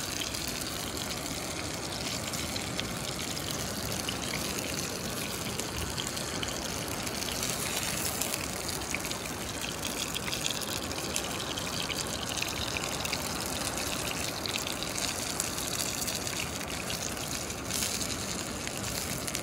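Fish fillets frying in oil in a small pan over a gas canister camp stove, a steady sizzle with fine crackling.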